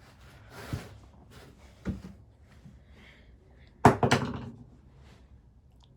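A few sharp knocks: a light one under a second in, another near two seconds, and the loudest about four seconds in, followed by a brief clatter.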